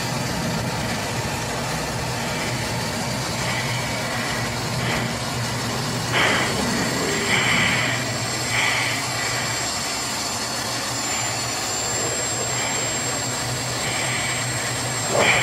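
Jet engine and airflow noise running steadily inside a fighter jet's cockpit, with a low hum throughout. A few short hissing sounds stand out about six to nine seconds in and again near the end.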